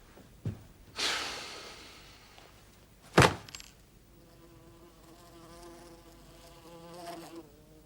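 A sharp smack about three seconds in, then a wasp buzzing steadily for about three seconds.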